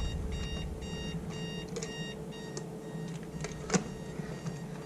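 Timex digital alarm clock beeping, short high-pitched beeps repeating quickly, growing fainter toward the end. A single sharp click or knock sounds about three-quarters of the way through.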